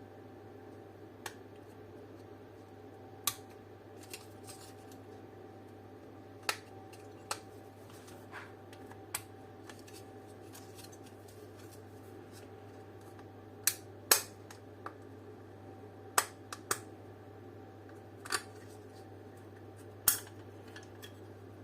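A metal fork prying at the plastic lens and housing of a car dome light: about a dozen sharp clicks and snaps at irregular intervals, the loudest about 14 and 20 seconds in.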